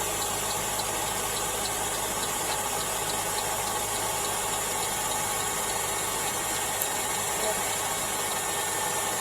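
2012 Mercedes-Benz GLK's engine idling steadily after a cold winter start, with a light, quick ticking that fades out about two seconds in. This is the startup tick the owner is asking about as possible knocking.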